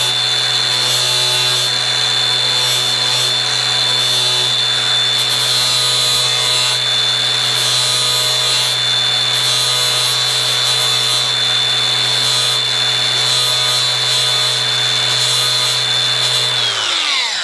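Angle grinder with a flap disc running steadily with a high motor whine while sanding down cut-off ribs on a plastic UTV hood. Near the end it is switched off and the whine falls away as the disc spins down.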